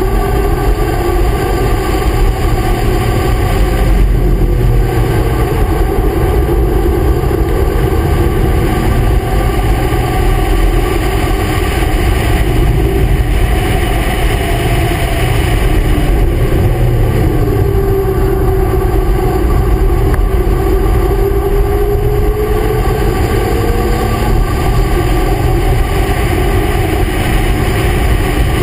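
Car engine at speed around a race track, its note rising slowly as the car accelerates and dropping twice, with heavy wind and road rumble on a camera mounted low on the outside of the car.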